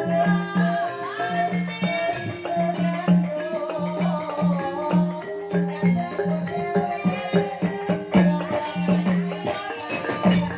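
Banyumasan gamelan music in the ebeg style playing continuously: layered pitched metallic notes over a steady repeating low note pattern.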